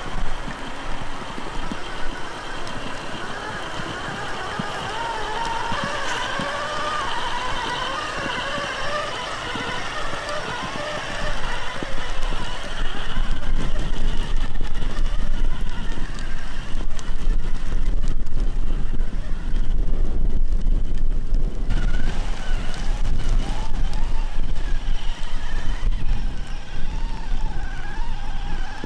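RC crawler truck's sensored brushless electric motor and drivetrain whining as it crawls through mud, the whine rising and falling in pitch with the throttle. A louder low rumble joins about a third of the way in and runs on under a steadier whine.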